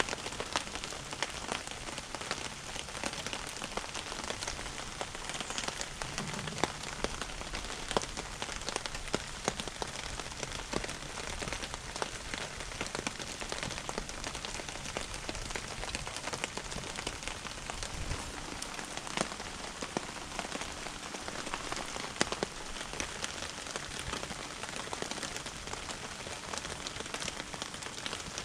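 Rain pattering steadily, a dense hiss made of many small sharp drop ticks.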